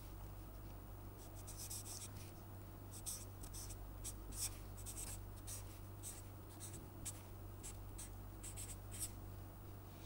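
Permanent marker writing on paper, a series of short quick strokes as an equation is written out, over a low steady hum.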